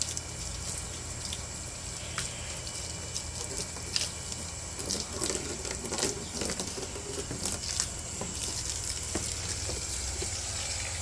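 Water spraying from a garden hose and pattering on the ground, with scattered small clicks.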